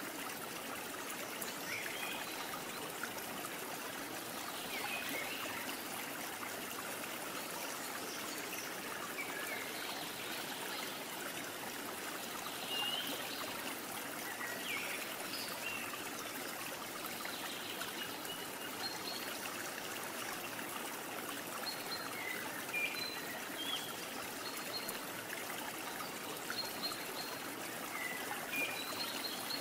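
Steady running-stream water ambience with scattered short, high chirps through it.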